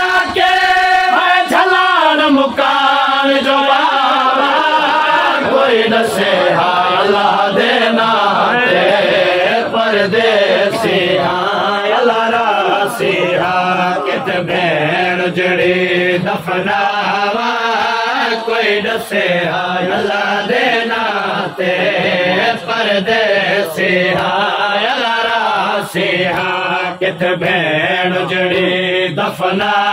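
Several men's voices chanting a noha, a mourning lament, in wavering melodic lines with no instruments. Scattered sharp clicks or slaps come at irregular times.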